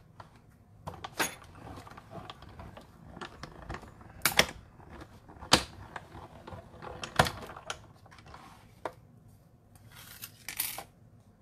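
Cutting plates with a metal die and paper being fed through a manual Cut & Emboss die-cutting machine: a series of sharp clicks and clunks a second or so apart, with handling rustle between, and a short scrape of plates sliding near the end.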